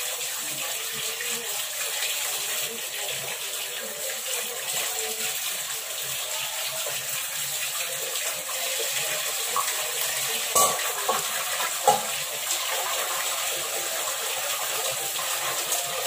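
Water running in a sink as a rice pot is rinsed by hand with water only, no soap, with two knocks of the pot about two-thirds of the way through.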